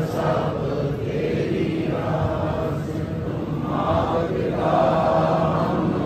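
Sikh congregation chanting together in unison, a steady devotional chant of many voices, held on long sustained notes.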